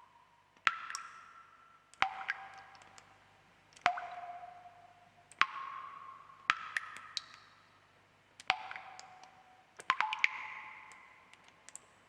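Water drops falling into water, one every one to two seconds: about seven plinks, each a sharp tap with a short ringing tone that dies away, the pitch differing from drop to drop.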